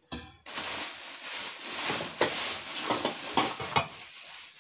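Clear plastic packaging crinkling and rustling as it is handled and pulled open, with a few sharper crackles along the way.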